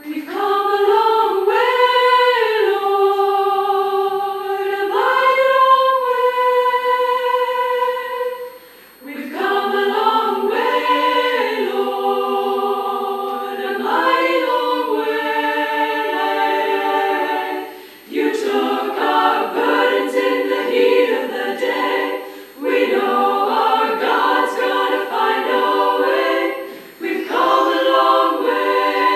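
Mixed choir of women's and men's voices singing a hymn a cappella in long held phrases, with short breaks for breath between them. The singing starts suddenly right at the beginning.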